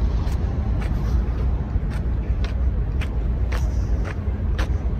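A steady low rumble with a faint hum, over footsteps clicking on pavement about every half second to a second.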